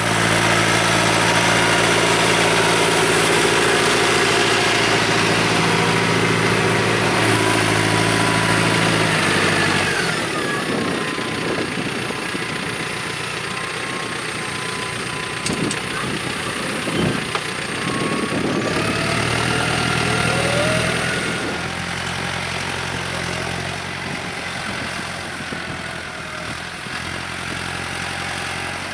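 Massey Ferguson 5425 tractor's four-cylinder diesel engine running steadily. Its low engine note fades back about a third of the way in and returns around two-thirds through, while a thin whine slides down in pitch and later rises again.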